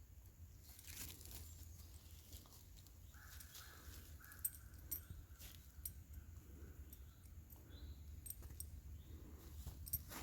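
Faint crackling and rustling of dry fallen leaves, with scattered small clicks. From about three seconds in, a bird calls in a series of repeated notes.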